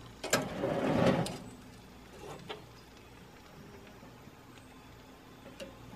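Grilled meat pieces being handled and shifted on a charcoal grill's metal grate: a few light clicks and a short scraping rustle about a second in, a couple more clicks a little later, then only faint background.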